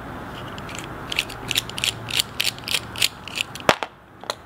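Ratcheting screwdriver clicking in quick, uneven runs as it backs a small screw out of a knife handle, with a couple of sharper clicks near the end.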